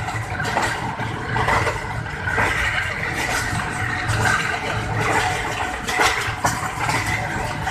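Passenger train coach running along the track: a steady rumble of wheels on rail with rattling, and short knocks about once a second as the wheels pass over rail joints.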